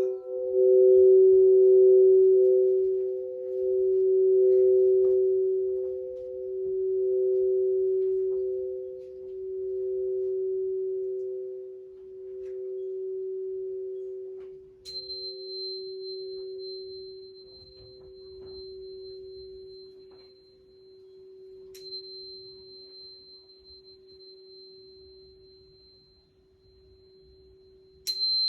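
Crystal singing bowls ringing out: a low tone and a second tone just above it swell and fade in slow waves, every couple of seconds, as the ring slowly dies away. About halfway through a high, pure ringing tone is struck, then struck twice more later on, the last time near the end.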